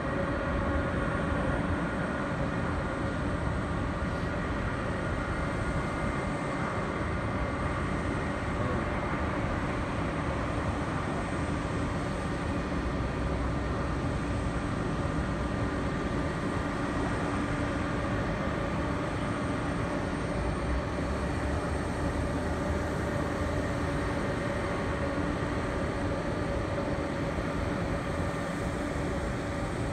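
Steady airport ramp noise from jet airliners idling and taxiing: a low rumble with several constant whining tones.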